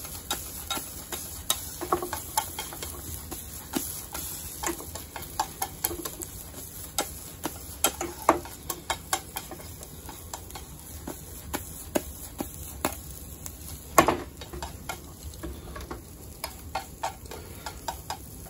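Wooden chopsticks tapping and scraping against a 20 cm DAISO nonstick frying pan as an omelette is pushed and folded into shape. The light clicks come irregularly, with one louder knock about fourteen seconds in.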